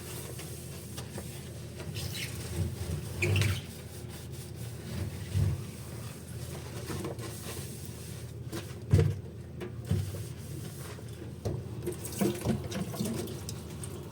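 Washing dishes at a kitchen sink: water trickling and splashing, with scattered soft knocks of dishes being handled.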